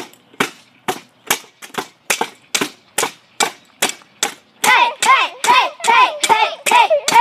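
Hand claps keeping a steady beat, a little over two a second. About four and a half seconds in, a child's high voice starts singing along in time with the claps.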